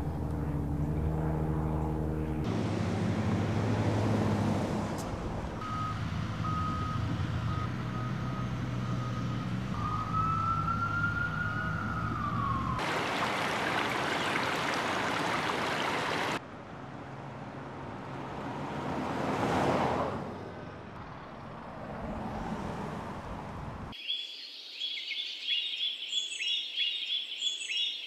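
A string of outdoor recordings cut one after another. First a steady low hum of vehicle engines, with a high tone that beeps and then glides up and down about ten seconds in. Then a loud rush of traffic noise and a quieter passing swell, and near the end high bird chirps.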